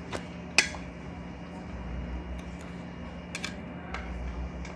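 Sharp clicks and taps of hand tools on the ceiling fan's metal cover while its screws are tightened: a loud one about half a second in, then a few lighter ones near the end, over a steady low hum.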